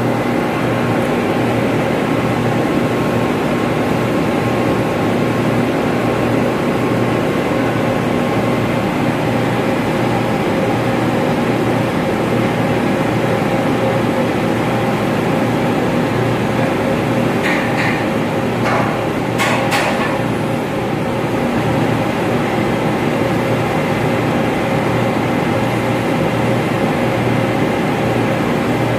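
Steady, loud hum of running ventilation machinery, with several steady tones. A few short clicks about two-thirds of the way in.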